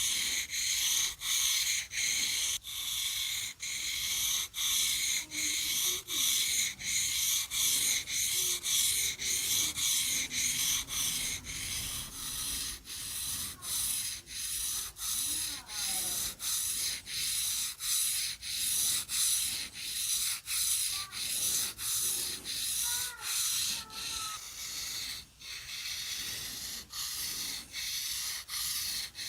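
Knife blade being sharpened against an abrasive in steady back-and-forth strokes: a gritty scraping hiss, about two strokes a second, with a brief break at each change of direction.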